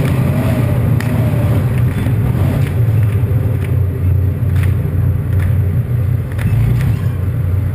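T-72 tank's V12 diesel engine running steadily, heard from on top of the turret as a loud, even low drone, with faint sharp cracks now and then.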